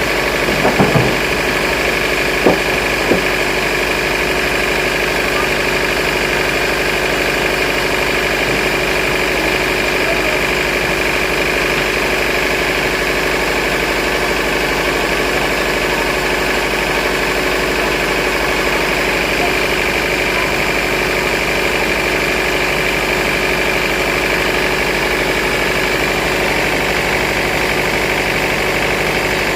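Sawmill machinery running steadily with a constant hum and whine, with a few sharp knocks in the first three seconds.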